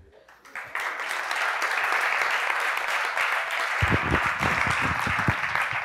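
An audience applauding steadily after a talk ends, the clapping building up within the first second. Low thuds close to the microphone join in from about four seconds in.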